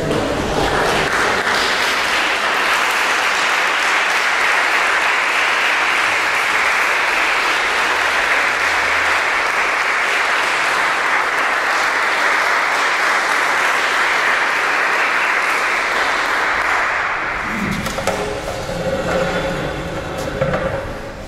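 Audience applauding steadily, dying away a few seconds before the end.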